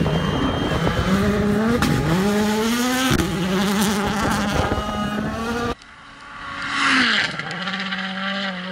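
World Rally Car turbocharged engines accelerating hard past on gravel stages, the engine note climbing again and again through upshifts, in several separate passes cut one after another. Near the end one car comes in louder and louder and passes with a burst of gravel and tyre noise, then its engine note holds steady.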